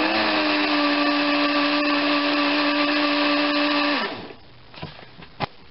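Small electric blender motor running steadily, blending egg yolks with a batch of melted butter for béarnaise sauce; after about four seconds it cuts off, its pitch dropping as it spins down. Two light knocks follow near the end.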